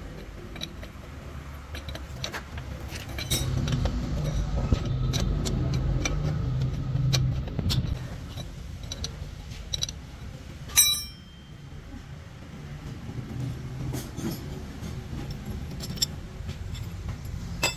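Metal parts and tools clinking and knocking during work on a truck gearbox, over a low rumble that swells for a few seconds; one loud clank near the middle.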